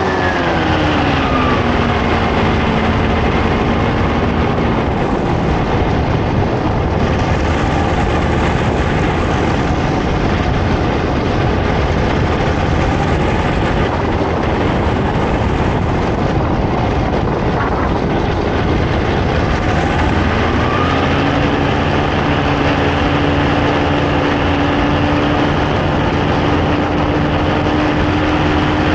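Paramotor trike's engine and propeller in flight, with a steady rush of wind. The engine note falls as the throttle comes back in the first two seconds, sinks under the wind for a long stretch, then steps up to a steady higher note about two-thirds of the way through and begins rising again at the very end.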